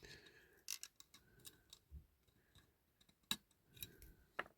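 Faint light clicks and small scrapes of a diecast model's plastic parts and a screwdriver being handled on a workbench, about half a dozen scattered ticks, the sharpest about three seconds in and just before the end.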